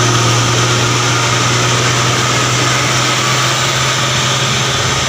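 Vehicle engine running steadily: a loud, even low drone under a broad rush of road noise.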